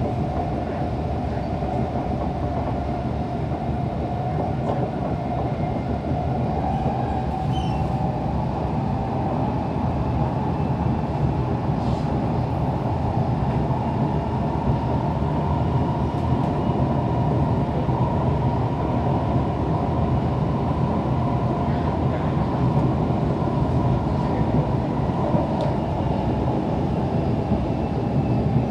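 Siemens C651 metro train running between stations, heard from inside the carriage by the doors: a continuous rumble of wheels on track with a thin whine that steps up in pitch about a quarter of the way in, growing slightly louder.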